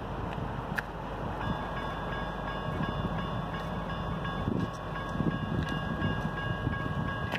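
Railroad crossing warning bell starts ringing about a second and a half in, a steady high ring, as the crossing activates to warn of an approaching train. It sounds over a steady low rumble.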